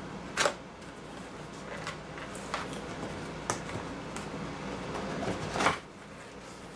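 Cardboard box being opened by its pull-tab tear strip: scattered clicks and rustles of cardboard, then a longer rip that builds and ends with the loudest snap near the end.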